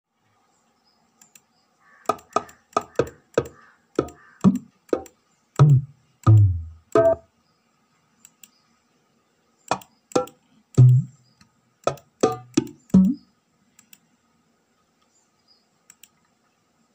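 Single dholak (dholki) drum samples auditioned one after another: sharp slaps and taps with short decays, mixed with deep bass strokes, in two runs with a pause of about two seconds between them.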